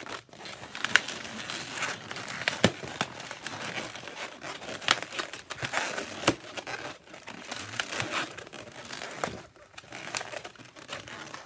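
Inflated latex twisting balloons rubbed and twisted together by hand: a continuous rubbing, crinkling rustle with scattered sharp ticks as the latex grips and slips.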